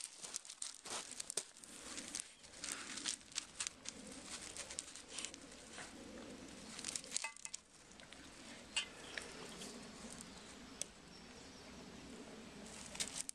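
Loose gravel crunching and clicking irregularly under puppies' paws as they walk and play on it.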